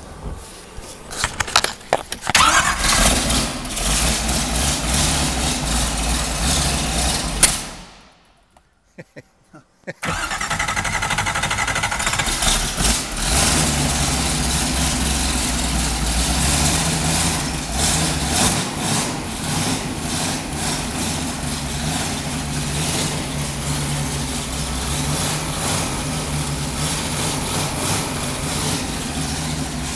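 383 stroker small-block Chevrolet V8 with a solid roller cam, started for the first time: it catches about two seconds in and runs for about five seconds, cuts out, then fires again about ten seconds in and keeps running steadily.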